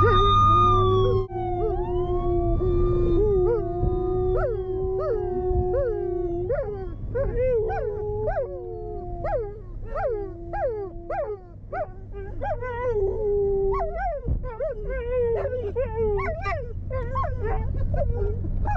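Siberian husky and German shepherds howling together inside a moving car. Long held howls give way, about six seconds in, to a run of short falling howl notes, over the car's low engine and road hum.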